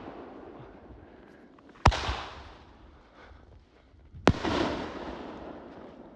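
Raccoon Fireworks Ghost Dragon aerial firework going off: two sharp bangs about two and a half seconds apart, each followed by a fading crackle.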